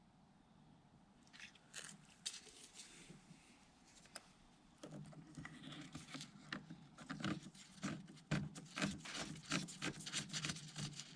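Scattered clicks, scrapes and knocks as the underbody cover is worked free and taken off, getting busier and louder about halfway through.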